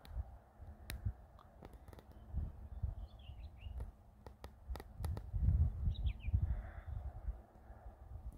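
Low, uneven rumble of wind on the microphone, strongest about five to six and a half seconds in, with a few short bird chirps around three and six seconds in and several sharp clicks.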